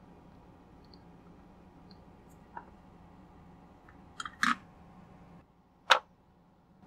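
Handling clicks and taps as a hand fits a wound ferrite toroid onto a plastic mounting board: one light click, a quick cluster of clicks a little after four seconds in, and a single sharp click about six seconds in, the loudest.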